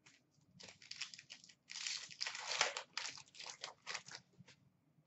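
Trading cards handled at a counter: a quick run of irregular dry swipes and rustles as stiff cards slide against one another, loudest in the middle and stopping about four and a half seconds in.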